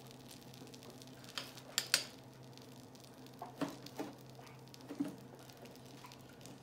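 A fork clicks sharply a few times as it is set down on a plate, then a glass mixing bowl of beaten eggs knocks dully against the granite counter as it is picked up. Under it, melted butter sizzles faintly in a frying pan and a steady low hum runs.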